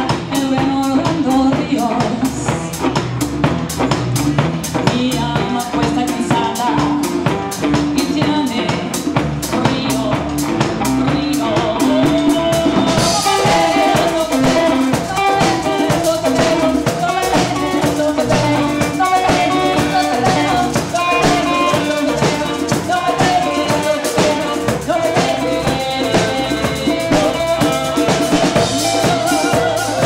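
Live rock band playing: electric guitar, electric bass, drum kit and congas, with the drums up front. The cymbals and high end get brighter about 13 seconds in.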